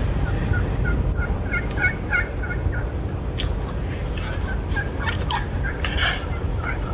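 Merriam's wild turkey gobbling: quick rattling runs of notes in the first few seconds, then more scattered calls, over a steady low rumble.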